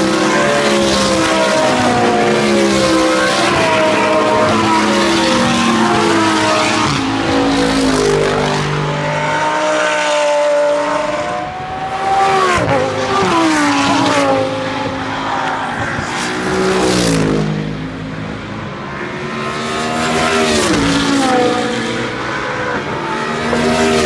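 A field of GT3 race cars, among them an Audi R8 LMS Ultra's V10, passing one after another at racing speed. Several engine notes overlap, climbing and falling in pitch as each car goes by, with short lulls between bunches of cars.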